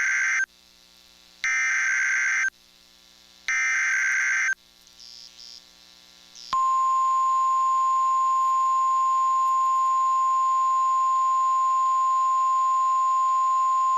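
NOAA Weather Radio emergency alert tones: three short bursts of warbling SAME data tones about a second apart, the first already under way, then from about six and a half seconds in the steady 1050 Hz warning alarm tone, one loud unbroken note that signals an alert message is about to be read.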